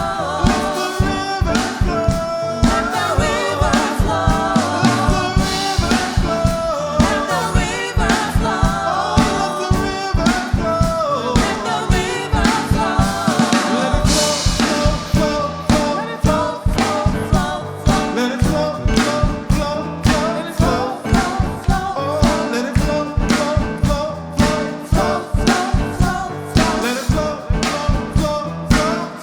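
Live gospel worship music: a band with a drum kit keeping a steady beat under singing.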